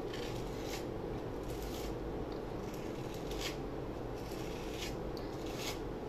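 Metal palette knife scraping modeling paste across a plastic stencil: short, irregular scrapes and rubs, a few to the second at most.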